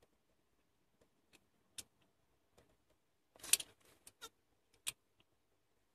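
Irregular sharp clicks of a small hand tool and screws against the throttle body as a throttle position sensor is fitted, with a short clattering rattle about three and a half seconds in.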